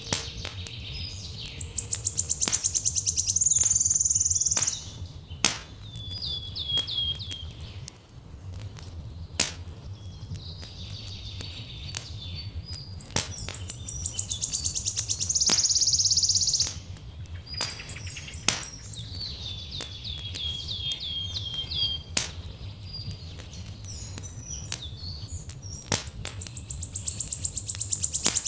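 Songbird singing a high trilled, buzzy phrase that repeats about every eleven or twelve seconds, with series of quick falling notes between. Sharp pops and crackles of a wood fire come through all along over a steady low rumble.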